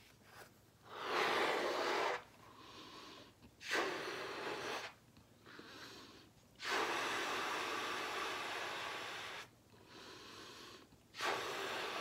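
A woman blowing up a latex balloon by mouth: four long puffs of breath pushed into the balloon, with quieter pauses between them. The third puff is the longest, about three seconds, and the fourth begins near the end.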